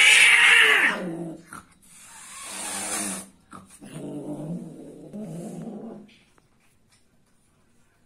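Female cat's loud yowl at the end of mating, breaking off about a second in, followed by a hiss and then a couple of seconds of low growling.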